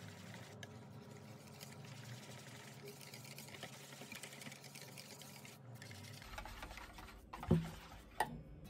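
Wire balloon whisk beating thick crepe batter in a stainless steel bowl: fast, continuous strokes, the wires rattling and scraping against the metal. Two sharp knocks near the end, the first the louder.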